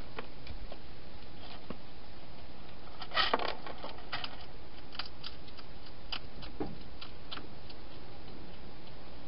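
Wild hedgehog eating: irregular sharp crunching clicks, with a quick cluster of louder ones about three seconds in, over a steady hiss.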